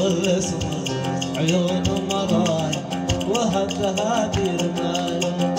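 Live Arabic wedding song music: a plucked-string instrument carrying a wavering melody over sustained notes and a steady drum beat.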